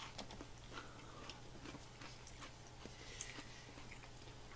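Faint eating sounds: scattered light clicks of spoon and chopsticks against plastic cup-rice containers and bowls, over a steady low hum.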